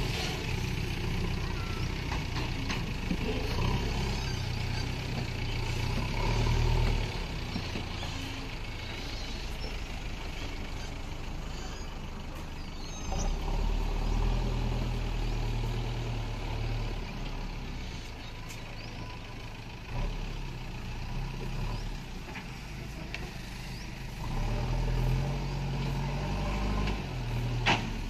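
JCB backhoe loader's diesel engine running as the machine works earth with its front bucket, the engine note swelling louder several times under load. A sharp knock sounds near the end.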